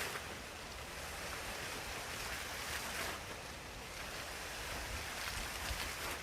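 A recorded water sound effect being played back: a steady, rushing, surf-like hiss that swells twice.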